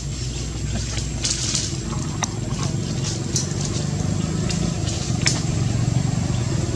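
A motor vehicle's engine running steadily and slowly growing louder, with a few sharp clicks over it.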